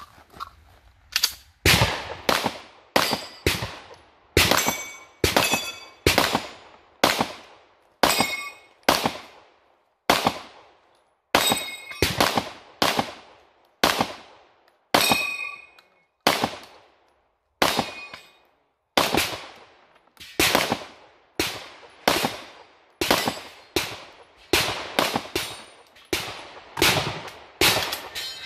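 A long string of pistol shots, dozens of sharp cracks at a steady pace of about one to two a second, a few of them followed by a brief metallic ring.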